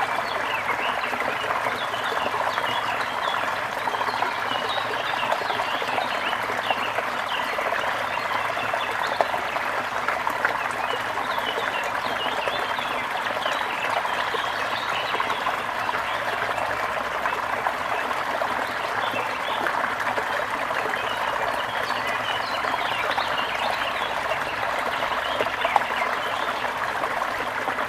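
A small river flowing steadily, with many birds chirping throughout.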